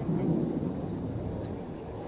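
Low, steady rumble of aircraft engines, a little louder in the first half-second.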